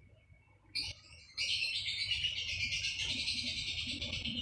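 Small birds chirping in a rapid, dense chatter. It starts after a brief quiet gap, with one short burst a little under a second in, and becomes continuous from about a second and a half in.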